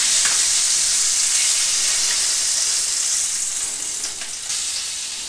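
Cod and red pepper kebab sizzling in butter in a ridged grill pan: a steady high hiss that fades away over the last couple of seconds as the skewer is lifted out of the pan.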